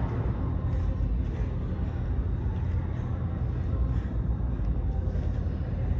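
A person breathing heavily from exercise, with faint breaths coming about once a second over a steady low rumble.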